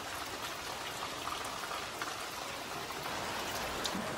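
Heavy rain falling steadily onto puddles and wet brick paving.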